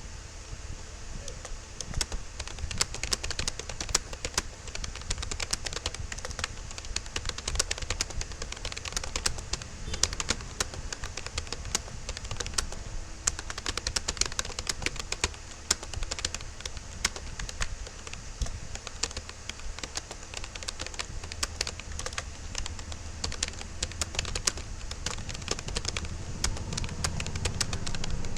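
Fast, continuous typing on a Rapoo computer keyboard: a dense, uneven stream of key clicks, several a second, with occasional louder strikes.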